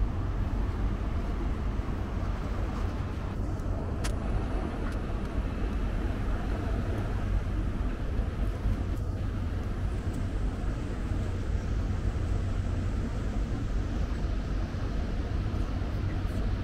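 Steady low engine rumble with no change in pitch or speed, and a few faint clicks about four seconds in.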